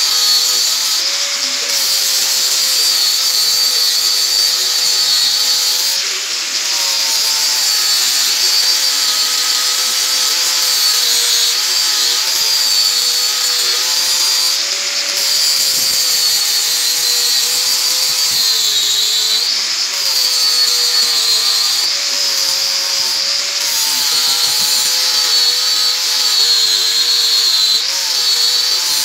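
Handheld angle grinder running continuously, its disc grinding rust off an old steel axe head. A steady high whine whose pitch dips briefly a few times as the disc is pressed harder into the metal.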